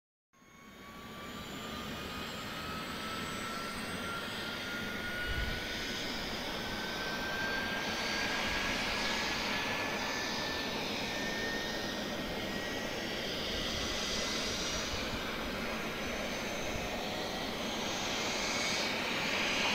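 Bell 407 helicopter's turboshaft engine running on the ground, a thin whine rising slowly in pitch over a steady rushing noise as the engine and rotor spool up during start.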